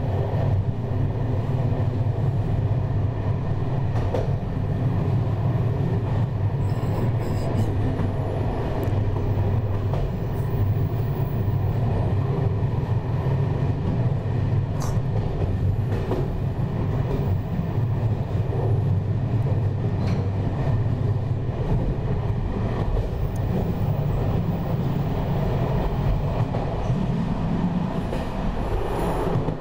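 Electric train running steadily along the track, heard from on board: a continuous low rumble and hum, with a few faint clicks scattered through.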